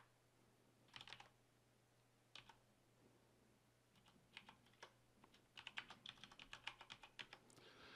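Faint typing on a computer keyboard: a few keystrokes about one second and two and a half seconds in, then a quicker run of keystrokes in the second half.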